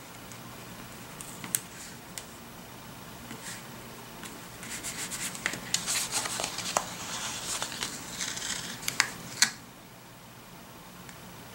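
Paper planner page and stickers being handled by hand: a few light taps, then several seconds of crinkly paper rustling and small clicks starting about halfway through, ending with a sharp click.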